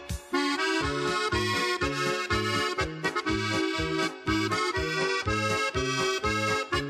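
Accordion music with a steady beat of alternating bass notes and chords.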